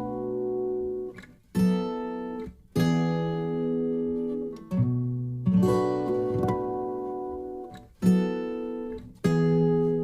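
Acoustic guitar strumming a slow series of chords. Each chord is left to ring and fade before the next, with brief pauses between some of them.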